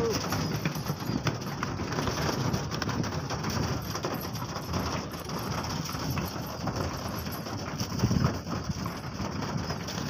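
Domestic pigeons pecking grain off a board and flapping among themselves: a dense, irregular patter of beak taps, feet and wingbeats, louder about eight seconds in.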